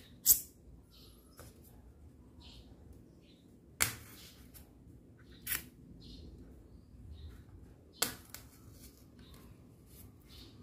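A few sharp clicks or snaps, four loud ones a second or more apart with the first the loudest, and fainter ticks between them.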